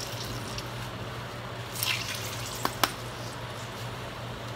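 Sweat-soaked plastic wrap being squeezed and wrung out over a bathroom sink, with sweat dripping and splashing into the basin, a short rustling burst about two seconds in, then two sharp drips or taps. A steady low hum runs underneath.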